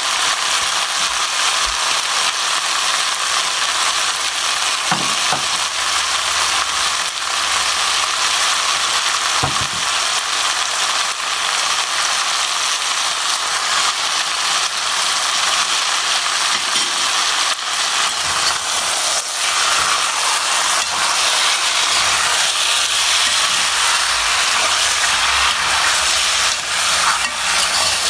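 Food frying in a pan: a steady sizzle, with the repeated clicks and scrapes of a spoon stirring against the pan.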